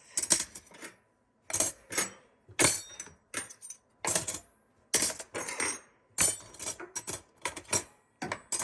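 Metal cutlery clinking and clattering in short bursts, about one a second, as handfuls of silverware from a dishwasher basket are put away.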